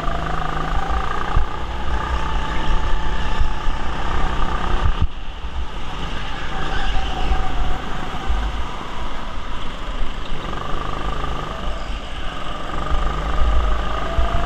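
Go-kart driven around an indoor track from its own seat: its motor's whine slowly rising and falling with the throttle through the corners, over a heavy low rumble.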